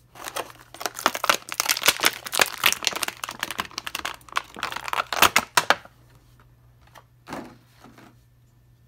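Thin clear plastic bag crinkling and crackling as an action figure is pulled out of it, dense for about five and a half seconds, then two soft rustles near the end.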